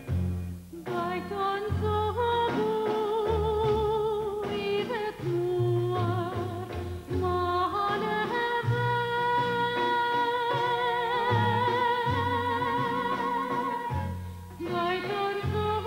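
A woman singing in a lyric soprano voice, holding long notes with a wide vibrato, over an instrumental accompaniment with a low bass line.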